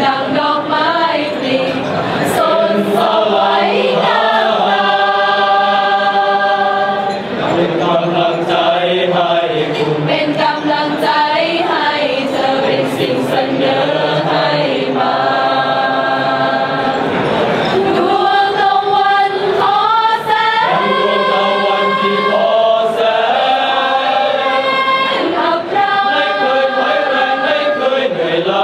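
Choir of police cadet trainees singing in harmony, holding long chords that change every second or two.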